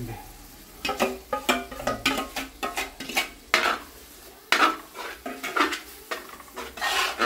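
A metal spoon scraping and clinking against a cooking pot in quick repeated strokes, stirring a chicken roast masala.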